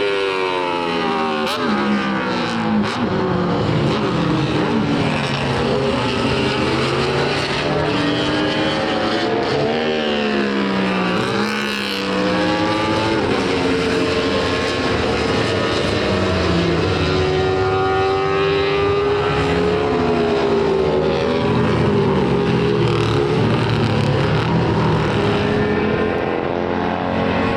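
Several Honda six-cylinder GP racing motorcycles running at once, their engines revving up and down so that several rising and falling notes overlap and cross.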